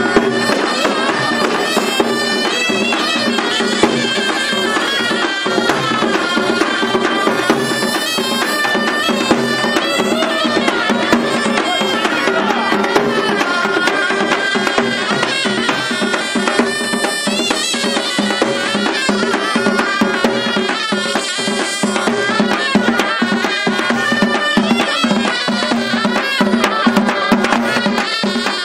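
Traditional Kabyle idebbalen band: reedy ghaita shawms play a wavering melody over steady held notes, with barrel drums (tbel) beaten with sticks in a steady rhythm.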